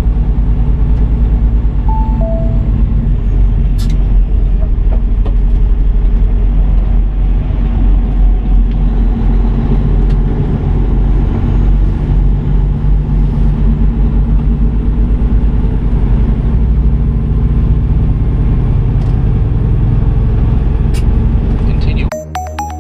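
Kenworth W900 semi truck running down the road: a loud, steady low drone of engine and road noise. A short two-note beep, falling in pitch, sounds about two seconds in.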